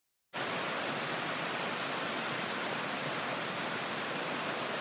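Creek rapids rushing over rocks, a steady, even rush of water that cuts in abruptly about a third of a second in.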